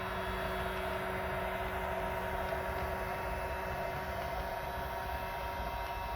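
Handheld hot-air blower running steadily, a constant fan hiss with a low motor hum, as it heats the heat-activated adhesive of vinyl wrap film.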